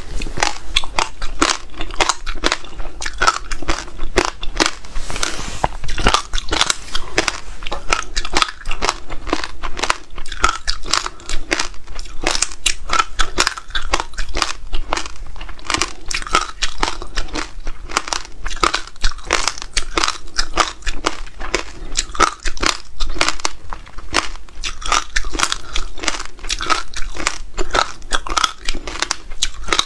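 Close-miked crunching and chewing of frozen passion fruit pulp with its seeds, mixed with buckwheat and black seeds: many crisp crunches in quick succession.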